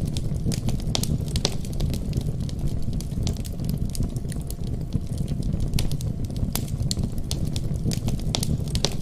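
Wood fire in a fireplace crackling, with frequent sharp, irregular pops over a steady low rumble of the flames.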